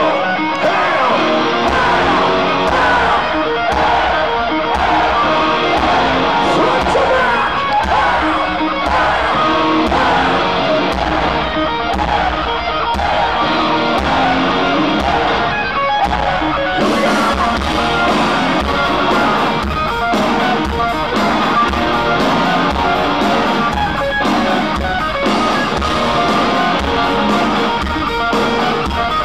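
Heavy metal band playing live at full volume: an electric guitar riff over a pulsing bass drum, with the rest of the band and cymbals coming in fuller about seventeen seconds in.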